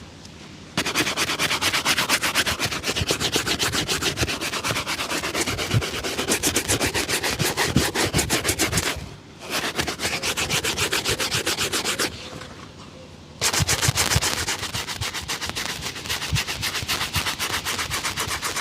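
A leather shoe being buffed during a shoe shine, with fast, even back-and-forth rubbing strokes. The strokes stop briefly about nine seconds in and again for about a second near twelve seconds, then carry on.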